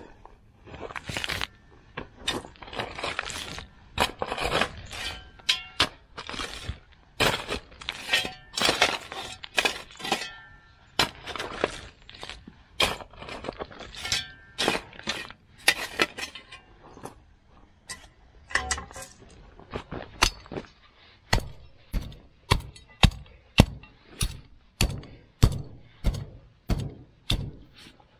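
A long run of knocks and clattering impacts, irregular and crowded at first, then settling into evenly spaced sharp knocks about two a second for the last several seconds.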